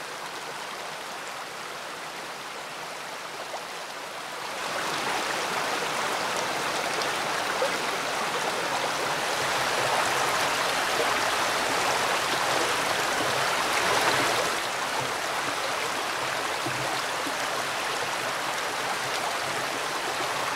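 Creek water flowing: a steady rush of running water that grows louder about four seconds in.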